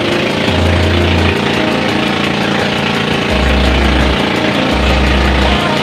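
Outrigger boat (bangka) engine running steadily under way, with wind buffeting the microphone in gusts.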